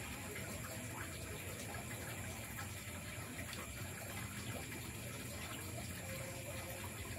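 Steady night forest ambience: a continuous rushing, water-like noise with steady high-pitched insect tones over it. Faint scattered small clicks run through it.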